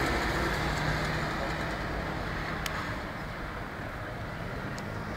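Steady outdoor background rumble with a faint engine-like hum, and a single sharp click a little past halfway.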